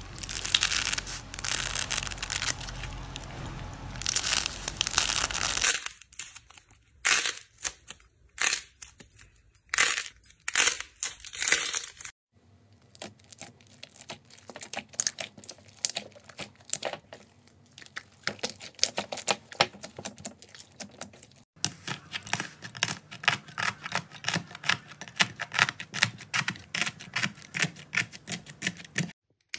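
Crunchy slime being cut and worked by hand over several short clips. It starts as steady crunching while scissors cut a stiff, sponge-textured slime. About six seconds in it changes to sparse, sharp crackles, and from about twelve seconds on to rapid, dense crackling as soft slime is pressed and pulled.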